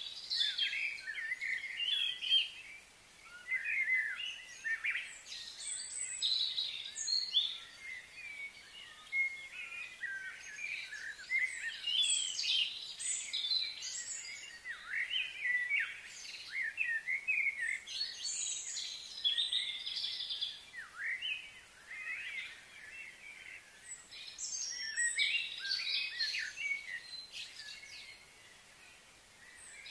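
Wild birds singing and chirping. Several overlapping songs make a busy, continuous chorus of quick, high, twittering notes.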